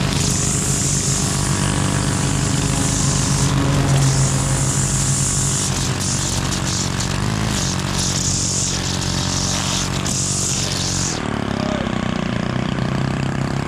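Gas string trimmer running at high throttle, the line hissing as it cuts grass. About eleven seconds in the cutting hiss stops and the engine note shifts as it comes off the grass.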